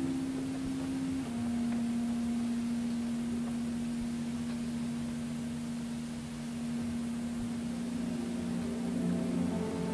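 A clarinet plays a soft, plain sustained note, stepping down to a lower pitch about a second in and holding it for several seconds; near the end other orchestral instruments enter quietly on lower notes beneath it.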